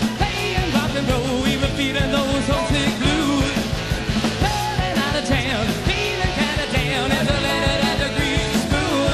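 Rock music with a lead vocal over a full band, playing continuously with a steady beat.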